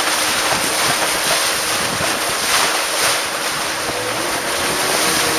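Steady rush of river rapids and spray around a long wooden passenger boat, with wind buffeting the microphone.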